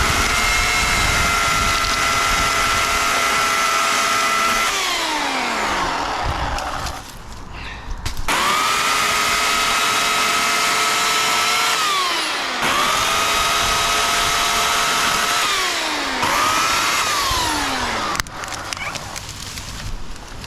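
Titan TTL758CHN 2000 W electric chainsaw run in four bursts at a steady high whine, the motor winding down in a falling glide each time the trigger is let go; the last burst is short.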